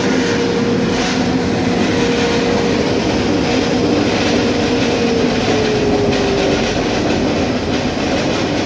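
Oliver 34-DD 30-inch double disc sander running, a loud steady machine noise with a faint tone that slides slightly lower partway through.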